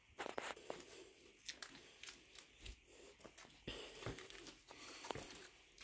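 Faint footsteps crunching on a dirt and gravel floor: a scatter of short, irregular crunches and clicks.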